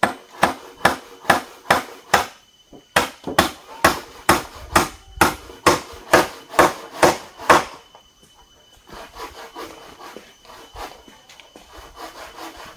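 Hammer blows on wood, a steady series of about two strikes a second, with a short break about two seconds in and softer, more scattered knocks in the last few seconds.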